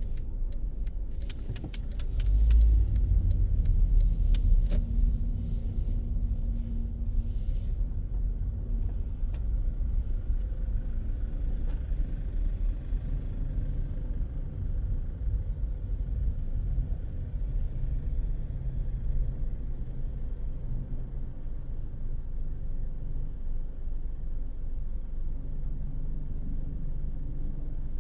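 Car driving on city streets, heard from inside the cabin: a steady low engine and road rumble that swells as the car picks up speed a couple of seconds in. Several sharp clicks and knocks sound in the first few seconds.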